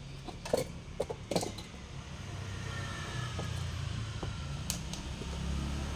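A few light knocks and clicks as packed items are handled, then a low steady rumble that builds from about two seconds in.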